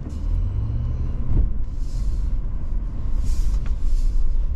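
Cabin rumble of a Honda Pilot TrailSport SUV creeping over a rough, muddy dirt trail, its tyres working through ruts and a puddle. Two brief hissing splashes come about two seconds in and again around three and a half seconds in.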